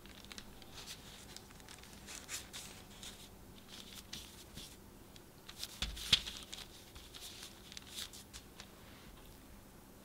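A knife slicing and scraping through a soft chocolate sponge sheet on parchment paper, with light crinkling of the paper. The loudest sound is a soft thump with a sharp click about six seconds in, as the sponge sheet is handled.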